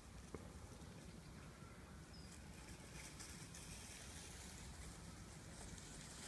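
Near silence: faint outdoor background noise, with one small click about a third of a second in.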